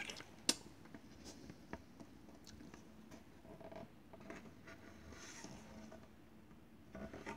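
Faint handling noises from a thick cardboard picture book: a sharp click about half a second in, a few softer taps, and a brief soft rustle about five seconds in as the page is moved to be turned.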